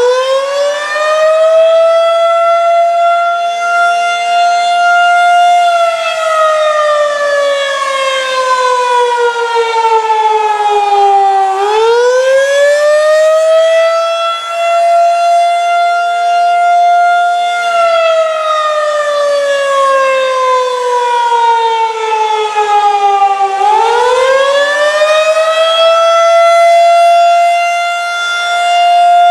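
Federal Signal 2001-SRN "Roundback" tornado siren sounding the attack signal up close: its loud wail climbs quickly, holds for about four seconds, then slides down over about six seconds, repeating about every twelve seconds.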